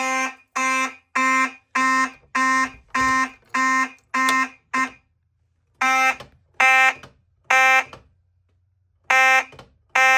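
Fire alarm horn sounding a buzzy, pulsed tone. It pulses evenly about one and a half times a second, stops briefly about five seconds in, then sounds in uneven groups of three with pauses: a poorly timed temporal-three evacuation pattern from a homemade relay-built alarm panel.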